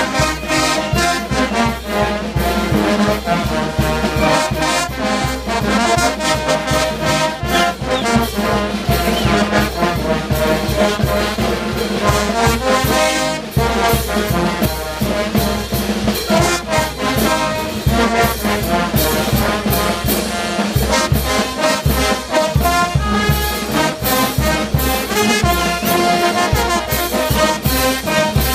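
Brass band of trumpets, trombones, sousaphones and bass drums playing a dance tune, with a steady bass-drum beat under the horns.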